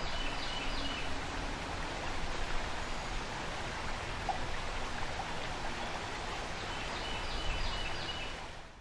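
Creek water running steadily over a shallow riffle, an even rushing. Faint short high chirps come briefly near the start and again near the end.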